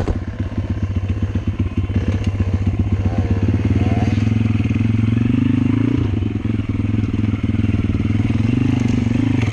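Welsh Pit Bike's small single-cylinder engine running under the rider on a rutted dirt trail, revs climbing about three to four seconds in and then holding steady, with the bike clattering over the bumps.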